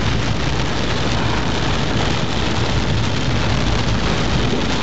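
Torrential rain hitting a moving car's roof and windscreen, a steady dense hiss over the low rumble of the car driving, heard from inside the cabin.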